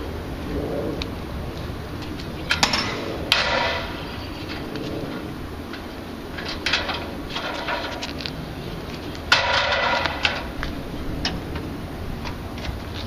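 A 32-foot ladder being handled off a truck: a few separate metallic clanks and rattles, the longest rattle about two-thirds of the way in, over a steady low hum.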